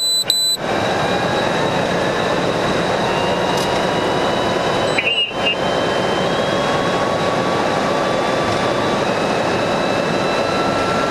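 Steady, loud road and wind noise from a police patrol car driving at speed in a pursuit. It opens with a couple of short high electronic beeps, and there is a brief chirp about five seconds in.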